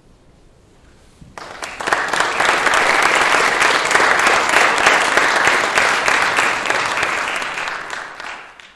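Audience applauding. The clapping starts suddenly about a second and a half in after a brief quiet, holds dense and steady, then fades out near the end.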